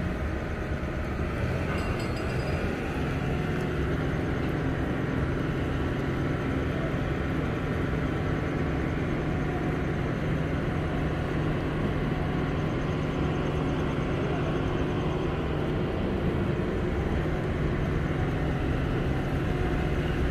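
Heavy construction machinery running with a steady engine drone, its low hum strengthening about three seconds in and then holding.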